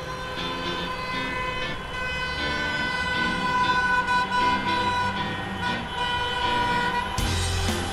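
Traffic sound effect: engines running with car horns honking in held notes, and a low rumble that grows louder near the end.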